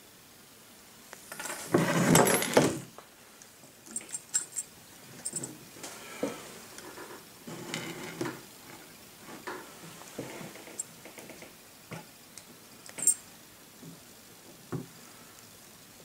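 Hands handling stripped wires and a small plastic bench clamp: irregular rustling, scraping and light clicks, with a louder stretch of rustling about two seconds in.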